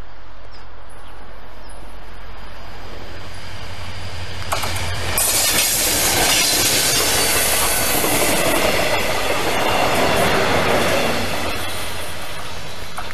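A Mugunghwa-ho passenger train, a diesel locomotive hauling two coaches, passes close by: a low hum while it approaches, then the engine and wheels on the rails are loud for about seven seconds as it goes past, and the sound fades as it moves away near the end.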